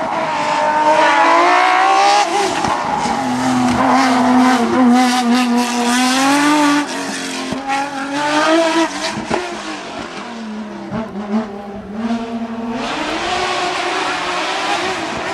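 Hillclimb race car's engine at high revs, its pitch climbing and dropping several times as it shifts gears and lifts off for bends.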